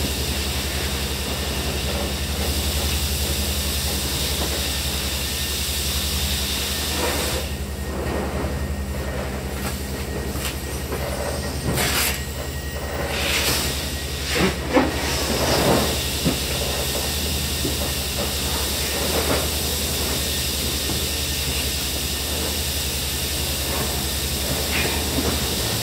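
Industrial vacuum hose running, a steady hiss over a low hum as it sucks up spent blasting grit from the containment floor. A few sharp rattles and knocks come about halfway through.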